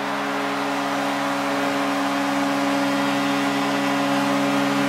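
Hockey arena goal horn sounding one long, steady chord over a cheering crowd, signalling a goal for the home team.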